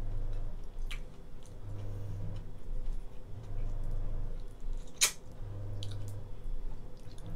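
Boiled lobster shell being cracked and picked apart by hand, with scattered sharp clicks of shell, the loudest about five seconds in, and some chewing. A low hum runs underneath.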